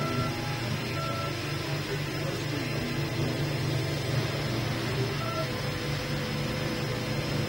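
Cetus 3D printer running: its stepper motors whine in short tones that change pitch as the head moves, over a steady low hum, with one longer held tone in the last couple of seconds.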